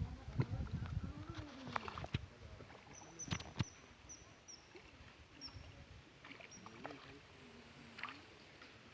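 Water sloshing and splashing, heaviest in the first two seconds. A run of short, high chirps follows in the middle.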